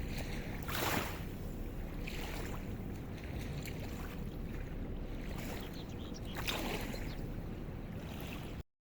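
Outdoor riverside ambience: a steady low rumble with wind buffeting the microphone in brief gusts about a second in and again near the end. The sound cuts off abruptly just before the end.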